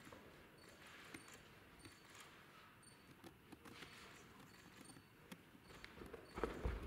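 Quiet sports-hall sound of gymnasts moving on the floor: faint scattered taps and soft footfalls, with one louder low thump near the end, like a body or feet landing on the floor.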